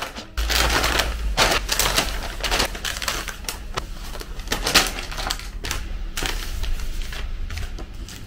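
A paper shopping bag rustles as glossy packets are tipped out of it, crinkling and slapping down onto a wooden table in a quick, irregular run of crackles and taps over a low rumble.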